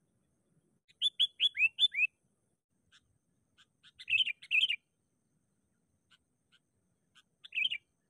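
Sooty-headed bulbul calling as a decoy to draw in wild bulbuls: a quick run of about six bright, falling chirps about a second in, a bubbly burst of notes around four seconds, then a few scattered single notes and another short phrase near the end.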